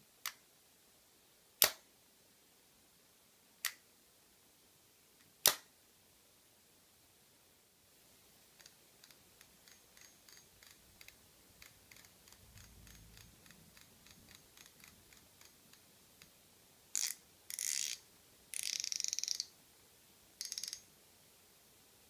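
Shimano 00 Stella 4000SS spinning reel: the bail snapping open and shut with four sharp metallic clicks, then the front drag knob being turned with a run of fine, even clicks. Near the end, four short buzzing bursts as the spool is turned against the drag.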